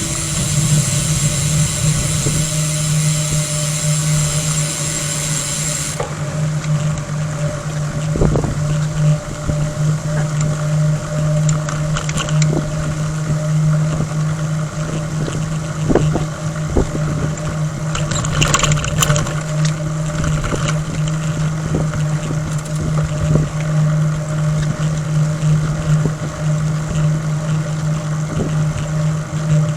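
Steady low droning hum with road and wind noise from a moving bicycle, plus scattered light clicks; a high hiss drops away about six seconds in.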